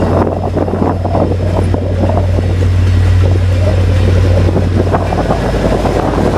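VIA Rail passenger train running by: a steady low drone under a loud rushing noise, with wind on the microphone.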